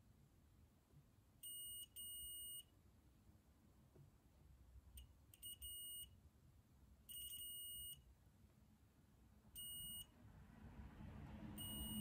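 Digital multimeter on its continuity setting, beeping with a steady high tone as its probes bridge the pins of a cable connector: a series of about seven or eight beeps, some short, some nearly a second long. Each beep signals a closed circuit, confirming the soldered connections are wired correctly.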